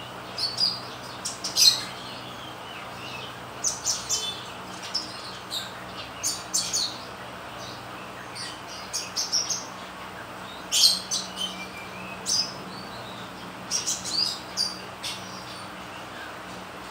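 Sunbird singing busily: clusters of sharp, high chirps and quick short trills with brief pauses between, over a faint steady low hum.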